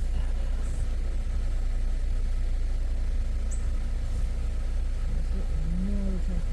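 Jeep driving at a steady pace, heard from inside the cab: a constant low engine and road rumble.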